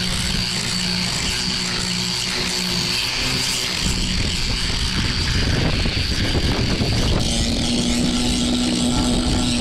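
Strong storm wind buffeting the microphone: a loud, continuous rumble that swells a little about halfway through.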